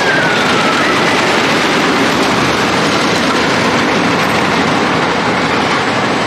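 Ghost Rider wooden roller coaster train running along its track with a loud, steady rumble, and a brief falling squeal in the first second.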